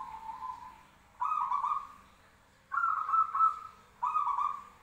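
Zebra dove (perkutut) cooing: three quick runs of short, rolling coo notes, each under a second long, with the tail of a lower, drawn-out coo at the start.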